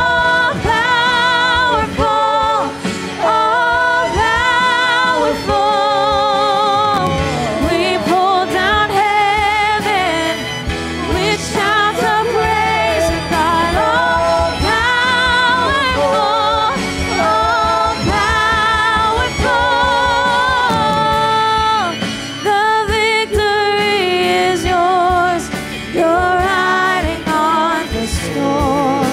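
Live praise-and-worship singing: a man and two women singing into microphones over the accompaniment, with vibrato on the long held notes.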